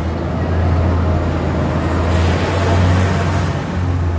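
A motor vehicle passing close by: a low engine rumble with tyre and road noise that swells to its loudest about two to three seconds in, then fades.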